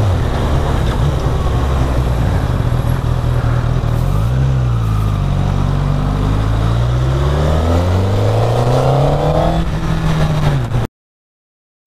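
Honda CBR1000RR Fireblade's inline-four engine on its stock exhaust, pulling through town. Its pitch dips and rises briefly about four seconds in, then climbs steadily in one long rev before falling off. The sound cuts to silence about a second before the end.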